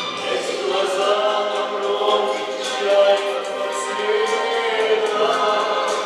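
Retro dance music with several voices singing together.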